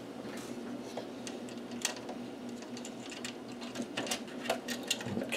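Light scattered clicks and taps of small metal parts being handled by hand, as little spacers are slid back onto their posts inside an electronic instrument's chassis, more frequent in the last couple of seconds, over a faint steady hum.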